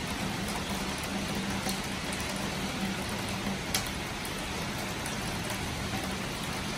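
Heavy rain pouring down steadily, a dense even hiss with scattered sharper drop ticks and one clear tick a little past the middle.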